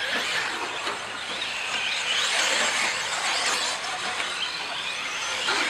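Electric 1/10-scale 4WD short course RC trucks racing on a dirt track: a steady mix of motor whine that rises and falls in pitch as they speed up and slow, with tyre noise on the dirt.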